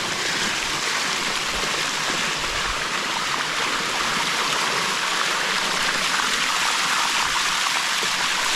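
Water rushing steadily over the rock of the Bua Tong sticky waterfall, heard close up.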